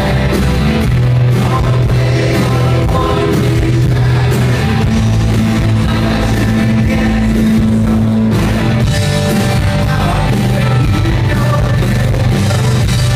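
Rock band playing live, with a singer and an acoustic-electric guitar over bass and drums, loud and full.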